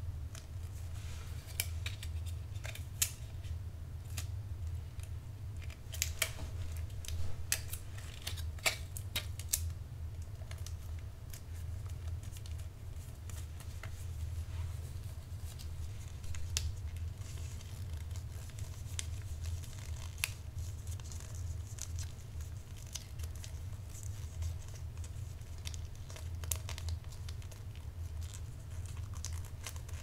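Gift wrapping by hand, close up: wrapping paper crinkling and rustling, with a run of sharp clicks in the first ten seconds, over a steady low hum.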